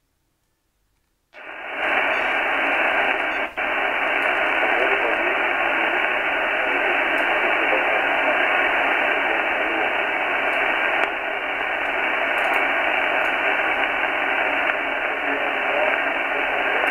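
AOR AR5001DX communications receiver coming on about a second in with steady band noise from its speaker, a thin, telephone-like radio hiss. The hiss cuts out for a moment a couple of seconds later.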